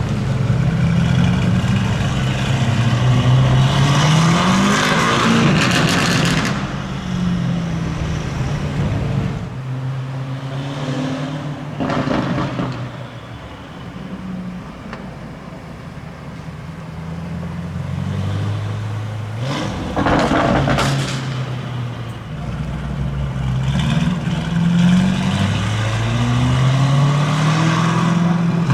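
A Lamborghini Urus's twin-turbo V8 through a loud Novitec aftermarket exhaust, accelerating hard several times. Each pull rises in pitch and falls away, with bursts of exhaust crackle as the throttle comes off.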